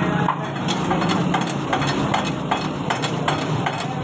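Metal spatulas striking and scraping a karahi wok as food is stir-fried, a quick, even clanking of about three strokes a second that starts a little under a second in, over a steady low hum.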